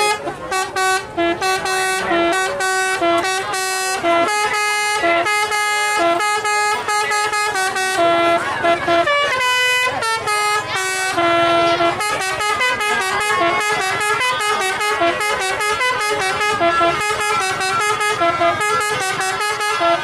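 Basuri telolet horn on a tour bus playing a fast melody of short, stepped notes, with a few notes held longer, one after another without a break.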